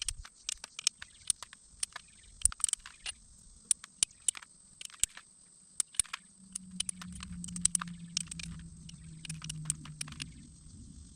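Glass being knapped with a bopper: sharp, irregular taps and clicks of the tool striking and flaking the glass edge. A low hum comes in about halfway through and falls slightly in pitch.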